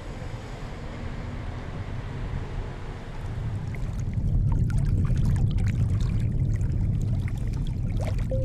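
Wind noise on the microphone, then from about three and a half seconds in, small waves lapping and splashing against stones at the water's edge, over a louder low wind rumble.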